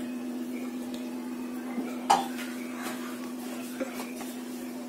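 A few light clinks of steel kitchen bowls and plates being handled, the loudest about two seconds in, over a steady low hum.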